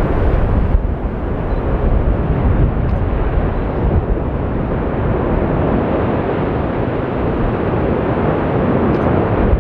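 Lava fountain jetting from the Fagradalsfjall crater during one of its geyser-like eruption pulses: a loud, steady rushing noise with a deep rumble underneath.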